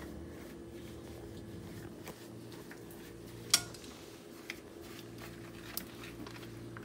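Dishes being washed by hand in a sink: a few scattered clinks, the sharpest about three and a half seconds in, over a faint steady hum.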